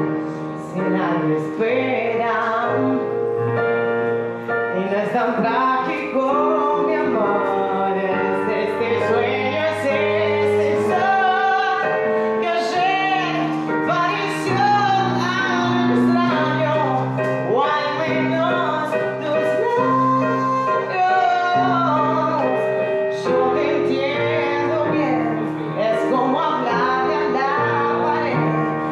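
A woman singing a song, accompanied by chords on a Casio Privia digital piano, in a piano-and-voice duo arrangement.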